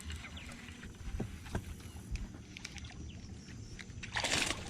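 Boat handling noise: a steady low rumble with a few sharp knocks and clicks, then a short rushing burst of noise near the end.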